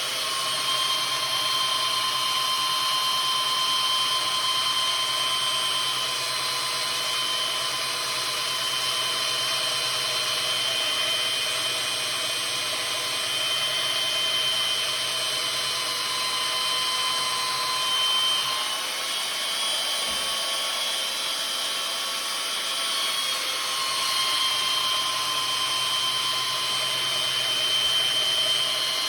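Electric power tool running steadily with a high motor whine, used to sharpen a maul head. The whine shifts slightly for a few seconds about two-thirds of the way through.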